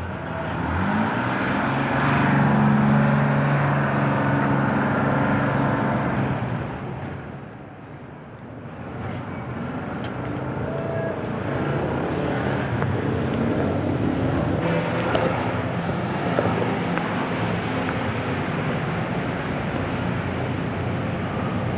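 Bus terminal ambience: a bus engine rises in pitch about a second in and runs loudly for several seconds, then fades around eight seconds in. After that the engine and traffic noise builds up again and stays steady.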